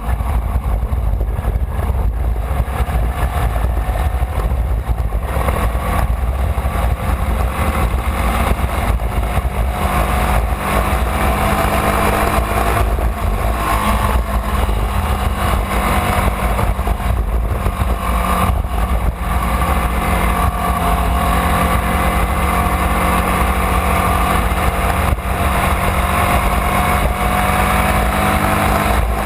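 Formula Vee race car's air-cooled Volkswagen flat-four engine running at speed, heard onboard with a heavy low rumble of wind on the microphone. Its pitch climbs gradually through the second half as the car accelerates.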